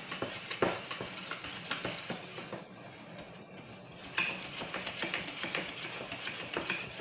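Wire balloon whisk beating a thick egg-yolk and flour batter by hand in an enamel bowl: a fast, irregular run of light scraping and clicking as the wires hit the sides of the bowl.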